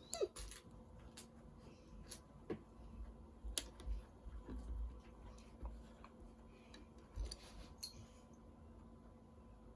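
Faint, irregular clicks and light taps of plastic Lego pieces being handled and pressed together, with a few soft low thumps.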